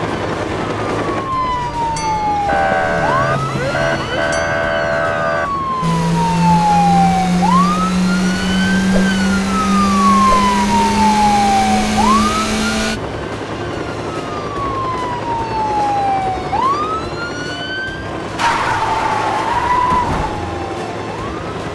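Police car siren wailing, each cycle a quick rise then a slow fall, repeating every three to four seconds. Under it a car engine accelerates in the middle stretch, its hum climbing steadily in pitch. A held chord of tones sounds a few seconds in.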